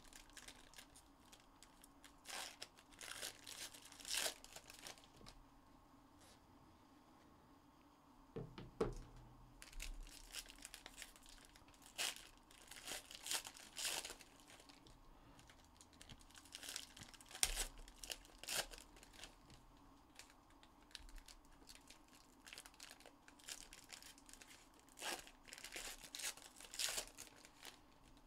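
Foil wrappers of Panini Donruss basketball card packs being torn open and crinkled by hand, in short, irregular crackling bursts, with a lull of a few seconds about five seconds in.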